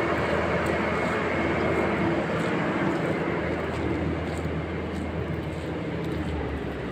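Boeing 737-800 on pushback behind a tug: a steady jet whine over a low rumble and hum, slowly getting quieter.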